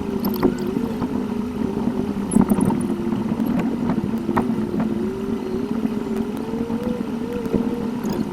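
Car engine and road noise picked up by a dashcam inside the car, played back at eight times speed, so the engine note is a wavering tone that drifts up and down, with a few faint clicks.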